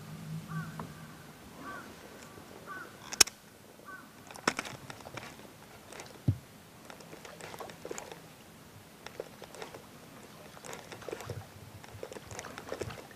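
Faint splashing and gurgling of a topwater pencil popper reeled steadily across still pond water. There is a sharp click about three seconds in and a few faint bird calls in the first few seconds.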